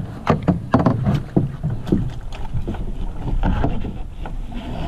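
Canoe being paddled into a headwind on choppy water: irregular knocks and splashes of paddle and waves against the hull, several a second, over a low rumble of wind on the microphone.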